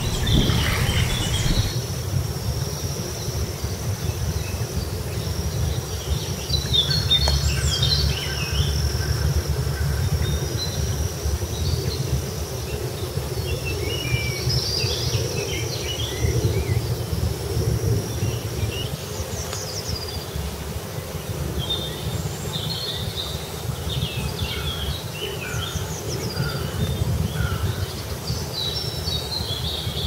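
Small birds chirping in short scattered calls, more of them in the second half, over a steady low outdoor rumble and a thin, high, steady note that breaks off now and then.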